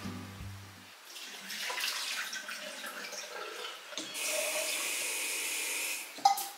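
Water splashing at a kitchen sink, then the tap running steadily for about two seconds as a glass vase is filled, followed by a sharp knock.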